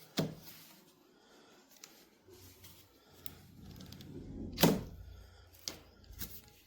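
Clicks and knocks of a plastic hair clipper and its accessories being handled and set down. The loudest is a sharp knock about four and a half seconds in, over a faint low hum in the second half.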